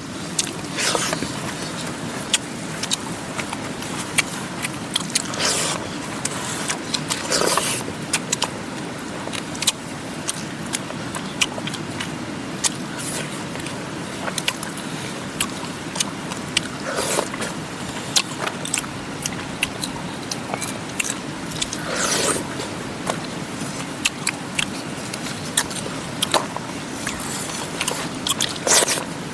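Steady rush of a mountain river. Frequent small clicks and a handful of short scraping or rustling sounds sit on top, about six of them spread through.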